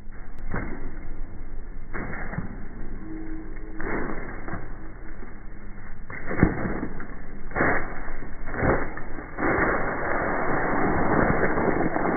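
Flip-flop footsteps crunching and scuffing on loose gravel and dirt: irregular steps that crowd together in the last few seconds as a runner scrambles and falls. The sound is dull and muffled, with no highs.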